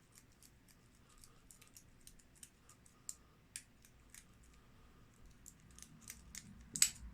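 Light metallic clicks and scratches of a lock pick being rocked back and forth in the keyway of a Master Lock aluminium padlock, raking at the pins, with a louder click near the end.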